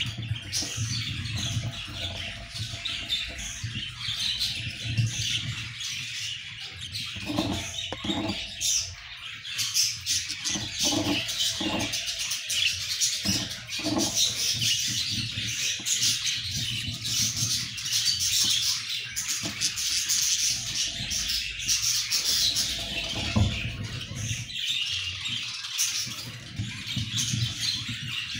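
Budgerigars chirping and chattering continuously in a dense, high-pitched stream.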